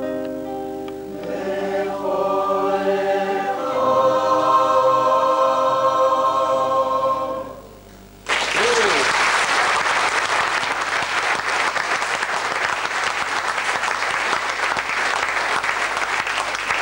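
A mixed choir sings a swelling final chord, its notes stepping upward and held until they stop together about seven and a half seconds in. After a brief pause the audience breaks into applause.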